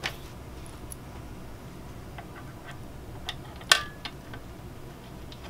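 A few scattered small metal clicks and taps as bolts are fitted by hand into a metal patio ottoman frame, with one sharper click and a brief metallic ring about three and a half seconds in.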